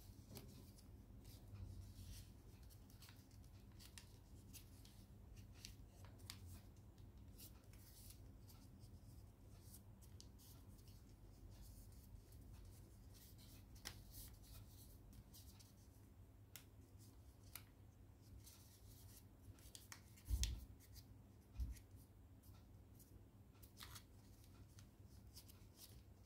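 Faint crinkling and crackling of origami paper being folded and creased by hand, with two soft low thumps about a second apart late on.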